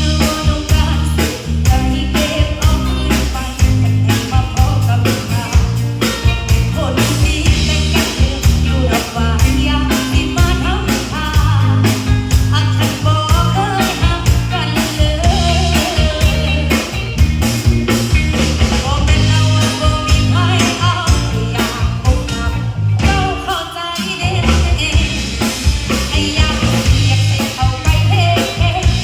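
A live band playing a song with a drum kit and bass guitar keeping a steady beat under a melody line. The low end drops out briefly about three-quarters of the way through.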